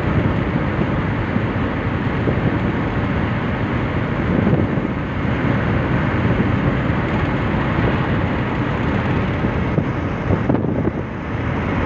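Steady road and wind noise inside a car cruising at motorway speed, with a brief dip near the end.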